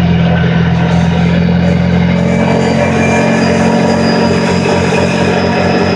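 Kawasaki Teryx S LE side-by-side's V-twin engine running steadily at a constant pitch while riding, over a steady rush of noise.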